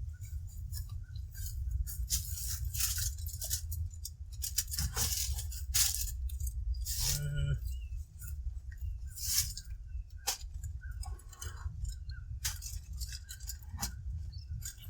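Metal clinks and crinkling rustles of foil and roasting pans being pushed and shifted around on a grill grate, over a steady low rumble.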